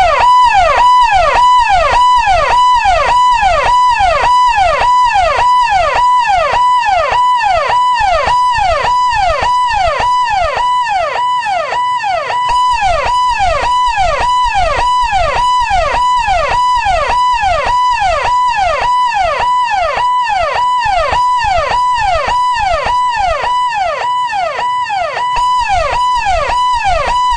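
Electronic ambulance siren tone: a buzzy, harsh-edged tone that holds briefly and then swoops down in pitch, repeating at an even pace of about one and a half to two cycles a second.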